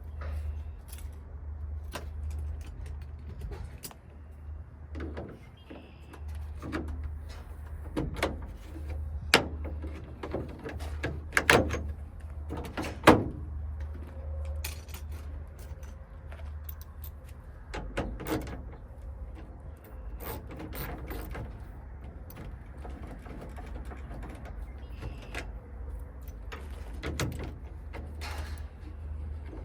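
Scattered clicks, knocks and metallic clatter of hand tools and lock parts being worked on a van's side door, with a few sharper knocks in the middle. A steady low hum runs underneath.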